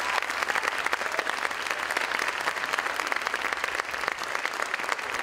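Theatre audience applauding: a dense, steady clatter of many hands clapping for the cast's bow at the end of a musical number.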